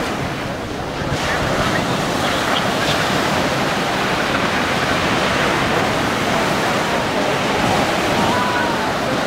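Steady rushing spray from a flyboard's water jets as the rider hovers above the sea.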